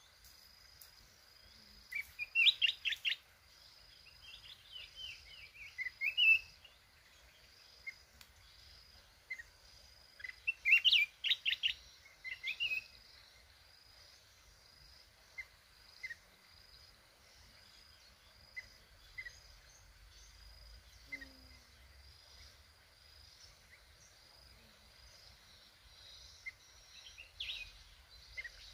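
Red-whiskered bulbul singing: two bursts of quick, loud chirping phrases, about two seconds in and again around ten to twelve seconds, with scattered single chirps between and a short phrase near the end. A faint, evenly pulsing high buzz runs underneath.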